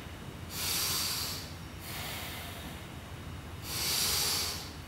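A man taking deep breaths through the nose during a yogic breathing exercise. Two long, loud breaths come about half a second in and near the end, with quieter breathing between.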